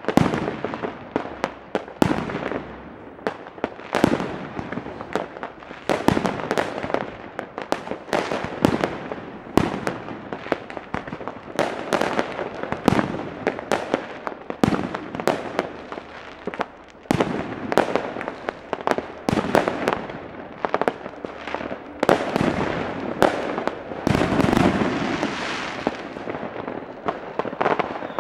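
Many fireworks going off at once: a dense barrage of sharp bangs over constant crackling, with aerial rockets bursting overhead.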